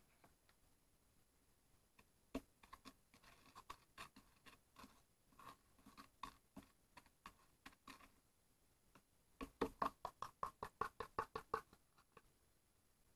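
A metal teaspoon stirring a powder into a little water in a thin plastic cup, with scattered soft clicks and scrapes. In the second half comes a quick run of taps against the cup, about nine a second, for about two seconds.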